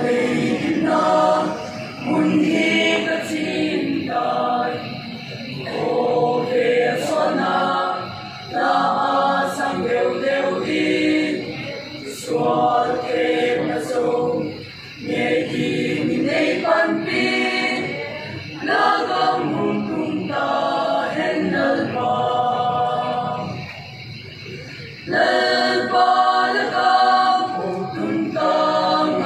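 Mixed choir of men's and women's voices singing in phrases a few seconds long, with short breaks between them, louder near the end.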